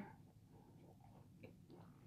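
Near silence with faint closed-mouth chewing of a macaron and a few small, soft mouth clicks in the second half.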